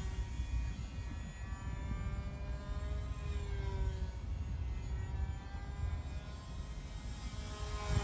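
Twin small electric motors and propellers of a foam-board RC plane whining in flight. The pitch slides down and up as it passes and changes throttle. A steady low rumble lies underneath.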